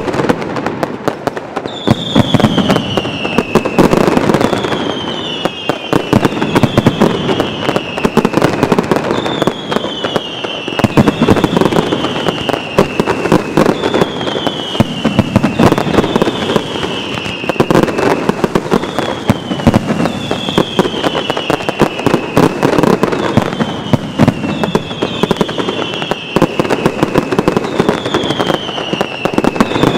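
Mascletà firework barrage: a dense, rapid run of firecracker and salute-shell bangs, with whistling fireworks that fall in pitch, one every second or two, overlapping the bangs.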